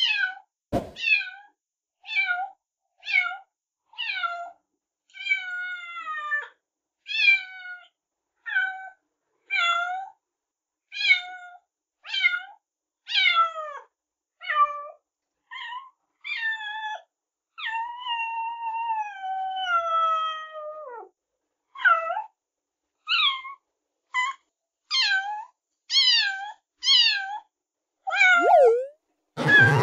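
A cat meowing over and over, about one meow a second, each call falling in pitch. About two thirds of the way through comes one longer, drawn-out meow.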